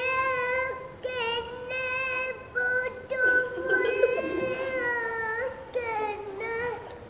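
A young boy's high voice reciting the Quran in a melodic chant, holding long steady notes in several phrases separated by short breaths.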